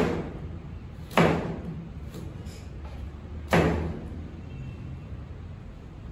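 Chef's knife coming down through carrot onto a plastic cutting board on a stainless steel worktop: three heavy knocks, at the start, a little over a second in and about three and a half seconds in, each ringing briefly.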